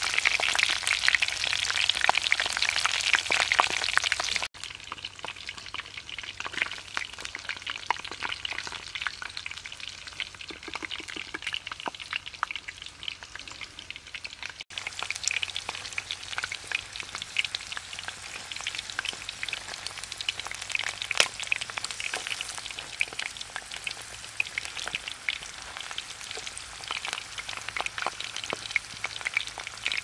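Hot oil sizzling and crackling around a whole plucked bird deep-frying in a clay pot. Loud for the first four seconds or so, then quieter after a sudden cut.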